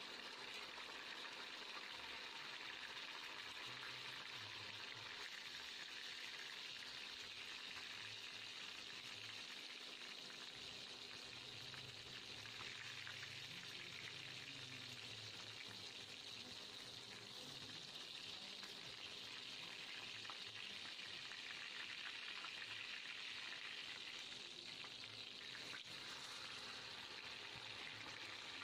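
Dorado (mahi-mahi) fish steaks shallow-frying in hot oil in a pan, a steady, even sizzle.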